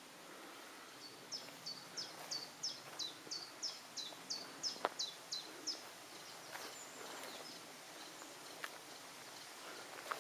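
A small songbird singing a run of about fourteen quick, evenly repeated high notes, roughly three a second, that stops a little after the middle. Faint outdoor background hiss with a few sharp ticks.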